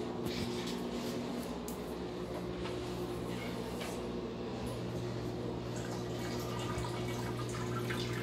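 Steady low hum in a small bathroom, with faint dripping water and scattered light clicks.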